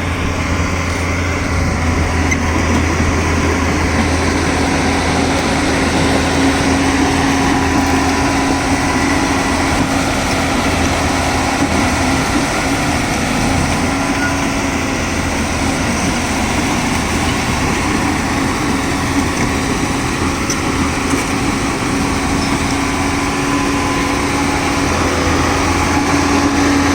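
Diesel engine of a Tata Hitachi tracked excavator running steadily with a constant hum.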